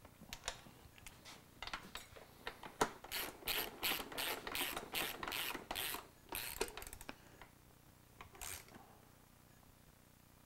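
Hand socket ratchet wrench clicking in a run of quick back-and-forth strokes as bolts are run down and tightened, with a few single clicks before the run and one last stroke near the end.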